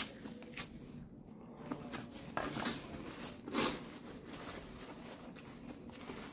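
Eating sounds: chewing with small rustles and clicks of food being handled, a sharp click at the start and a louder crunchy noise about three and a half seconds in.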